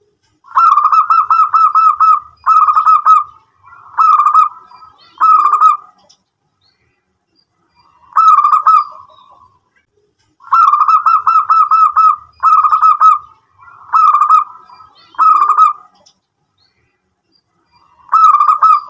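Zebra dove (perkutut) singing: about ten short phrases of rapid, staccato cooing notes, with a pause of about two seconds midway.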